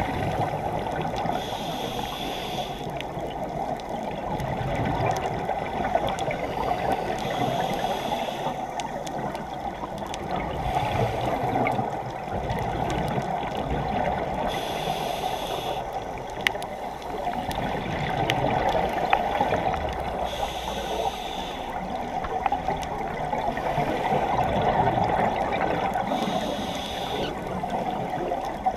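Scuba diver breathing through a regulator underwater: a short hiss and a wash of exhaled bubbles about every six seconds, over a steady rush of water.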